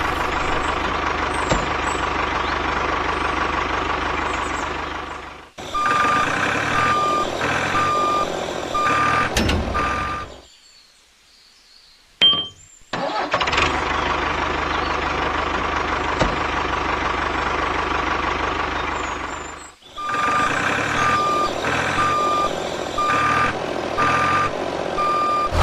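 Truck engine running, then a reversing alarm beeping evenly over it. The sequence plays twice, with a short lull between.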